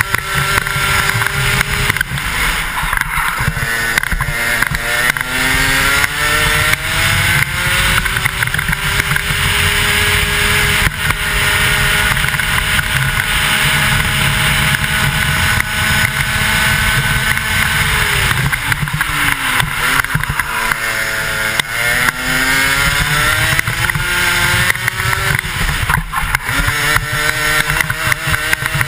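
A 125cc two-stroke kart engine at racing speed, its pitch climbing as it accelerates, holding high along a straight, then falling sharply about two-thirds of the way through as the kart brakes for a corner before climbing again. Heavy wind rush over a helmet-mounted microphone.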